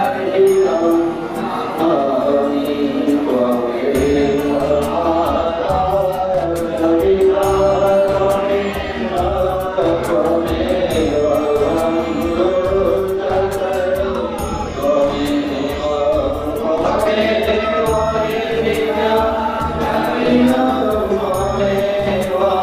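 Devotional music with chant-like singing. A low beat comes in about four seconds in.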